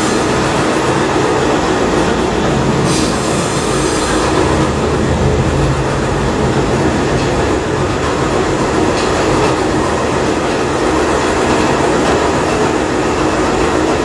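Homemade gas-fired Stirling engine heater running: the Stirling engine spins the fan, giving a loud, steady mechanical running noise over a low hum.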